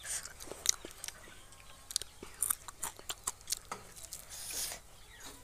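Close-up biting and chewing of a homemade onion fritter (pyaji) made from gram-flour batter, with many short, sharp crunches at irregular intervals.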